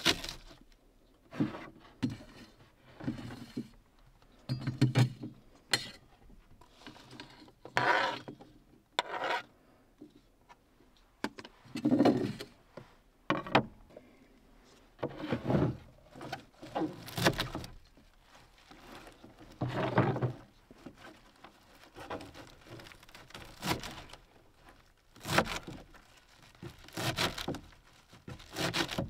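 Kitchen prep handling at a wooden counter: irregular knocks, scrapes and rustles as a knife and sliced greens are scraped off a cutting mat, a plate and plastic tub are moved, and leafy cilantro is handled. Near the end, a knife chops cilantro on the cutting mat in a quicker run of sharp strokes.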